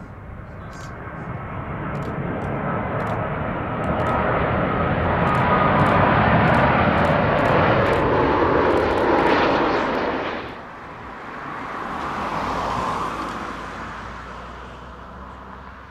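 Airbus A330-300 jet on landing approach with Rolls-Royce Trent 700 engines, passing low overhead: the jet noise swells to a loud peak and holds for several seconds. About ten seconds in it cuts off suddenly, and a second Airbus A330-300 on approach, powered by GE CF6-80E1 engines, is heard swelling briefly and then fading.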